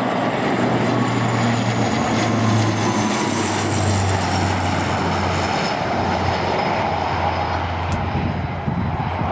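Landing airliner passing low overhead on final approach, a loud engine rush with a high whine and a low hum that both fall in pitch as it goes by.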